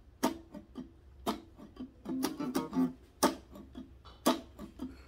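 Instrumental intro of a song: plucked guitar notes over a sharp percussive beat about once a second.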